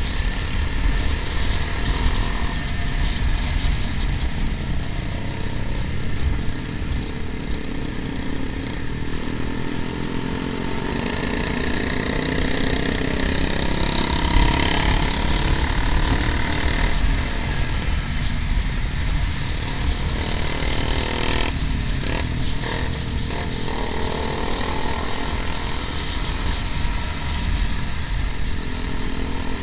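Sport motorcycle under way, its engine running with wind rumble on the microphone. Engine pitch rises and falls with the throttle about halfway through as other motorcycles ride close alongside.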